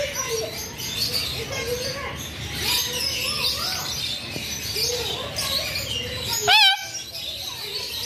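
Several birds chirping and calling, with one loud, short warbling call about six and a half seconds in.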